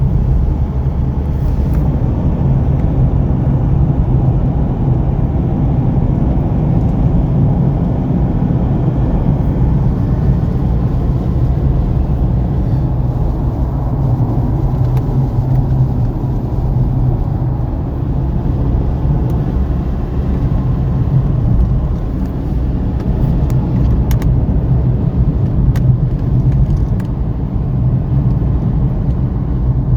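Steady engine and tyre rumble heard from inside a car's cabin as it drives on the open road.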